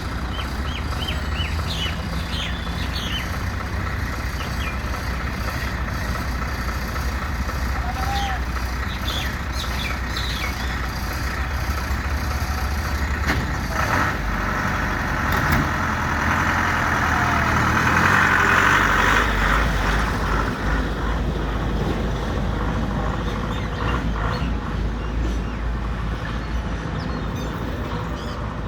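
Outdoor street noise: a steady low rumble of passing traffic that swells for several seconds around the middle, with a few short bird chirps in the first part.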